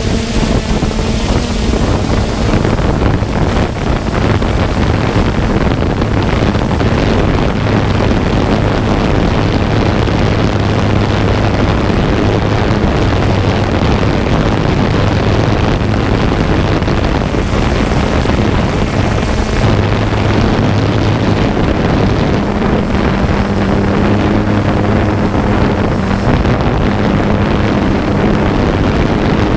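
3DR Solo quadcopter's motors and propellers running steadily, picked up by the GoPro slung beneath it, with a low hum that strengthens and fades and wind rushing over the microphone.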